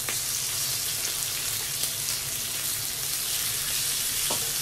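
Meat and vegetables sizzling on a hot electric tabletop grill plate, a steady even hiss of frying.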